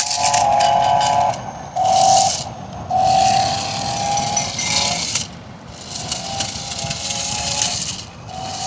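RC drift car's motor whining in bursts under a high hiss. The whine cuts out and comes back several times, with breaks about a second in, two and a half seconds in, five seconds in and near the end.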